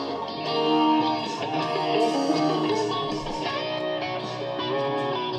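Guitar music played from a cassette tape on a Panasonic RX5500LE boombox's tape deck, heard through the boombox's own speakers. The deck plays steadily after a belt replacement and service, using a well-worn, chewed-up test tape.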